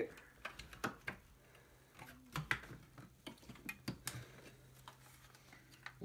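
Irregular faint clicks and knocks from a hand-cranked paper crimper as a CD is forced into its rollers and handled. The disc jams in the rollers instead of crimping.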